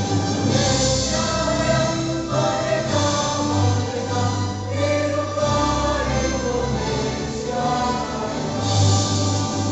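A choir singing a song in harmony, several voice parts sustaining notes that change every second or so.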